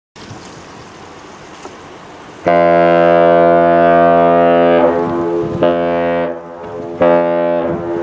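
Great Lakes freighter's horn sounding a long blast of about four seconds, then a shorter blast a little later, each one deep chord of several steady tones. Before the horn there is a low steady hiss of wind.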